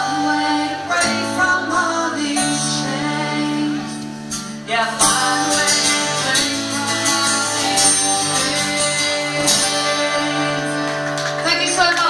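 Live country band playing the closing bars of a song: female lead vocal over acoustic guitars, electric bass and drums, with a brief drop in level about four and a half seconds in.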